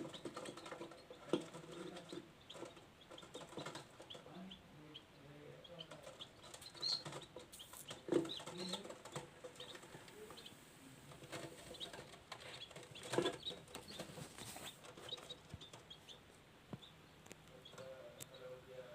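Chickens cheeping and clucking in short, scattered calls, with rustling and a few sharp knocks.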